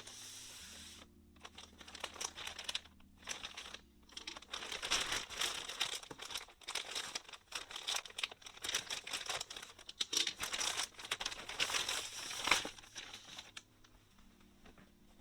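Packaging crinkling and rustling as it is handled and opened, with some tearing, loudest about twelve seconds in and stopping shortly after.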